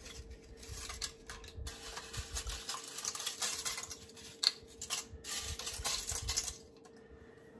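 Pieces of broken dry lasagna noodles rattling and clicking as they are scooped by hand from a ceramic bowl and dropped into an Instant Pot. It is a dense run of small clicks and rustles that dies away about six and a half seconds in, over a faint steady hum.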